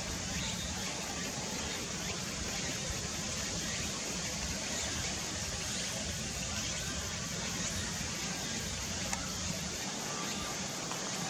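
Steady outdoor background noise: a low rumble with an even hiss over it, like distant traffic, with no clear bird call standing out.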